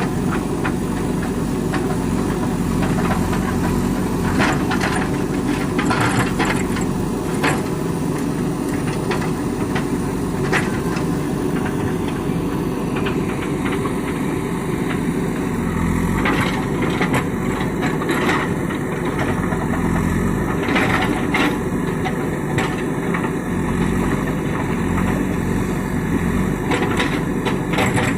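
JCB 3DX backhoe loader's diesel engine running steadily, with scattered knocks and rattles.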